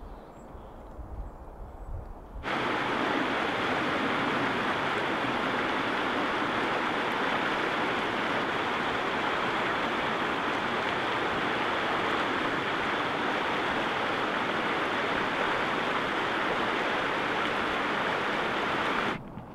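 Creek water rushing steadily over its bed. The sound cuts in abruptly a couple of seconds in and stops abruptly just before the end; before it there is only a faint low rumble.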